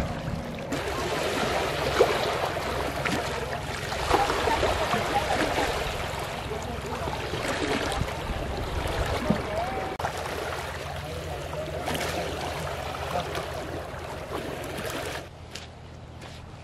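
Small waves washing against a rocky shore, a steady rushing wash of water that drops away suddenly near the end.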